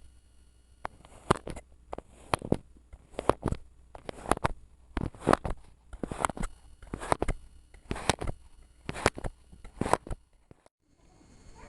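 Kinetic sand being cut: a crisp crunching slice roughly once a second, many of them in quick pairs, for about ten cuts.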